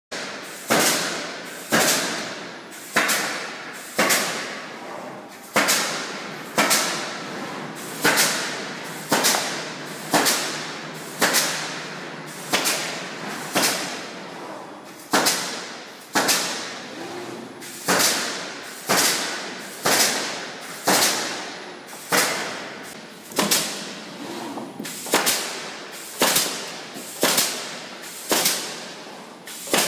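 EPM 1050 pallet nailing machine driving nails into a wooden pallet with its pneumatic nailing heads. Sharp bangs come about once a second, each dying away quickly, with machine noise running between them.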